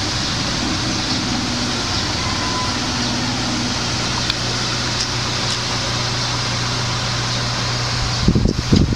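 Steady rushing background noise with an even low hum, like a fan or air conditioner running, and a few low bumps near the end.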